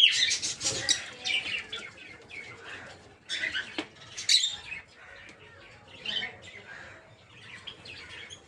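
Several peach-faced lovebirds chirping and calling: quick, sharp, high-pitched chirps in clusters, loudest at the start and again about four seconds in, with quieter chatter between.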